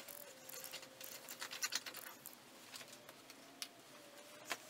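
Faint scraping and light clicks of a loose, rusty iron bolt being slid by hand out of its hole through a wooden bench leg.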